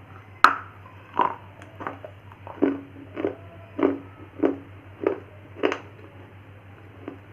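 A bite snapping off a piece of baked clay ('Punjab ki mitti'), then about eight chewing crunches at an even pace, a little over one a second, that stop about six seconds in.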